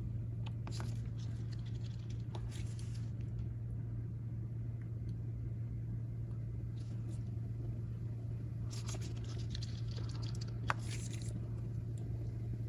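Faint scratching and ticking of a small precision screwdriver driving tiny screws into a phone's internal bracket, in a few short spells, with one sharper click late on, over a steady low hum.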